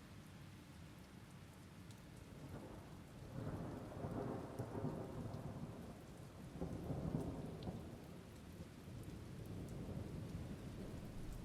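Thunderstorm: steady rain falling, with low rolling thunder that swells about three seconds in, peaks again around seven seconds, then rumbles on more softly.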